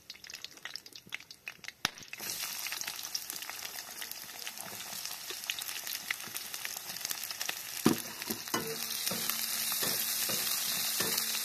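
Chopped onion frying in hot oil with tempering spices: a steady sizzle that starts suddenly about two seconds in as the onion hits the pan. In the last few seconds a spoon knocks and scrapes as the onion is stirred.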